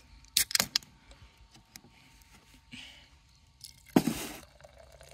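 An aluminium beer can's pull tab cracked open, a quick cluster of sharp cracks about half a second in. Near the end a louder rush as the beer pours into a stainless steel tumbler, fading over half a second.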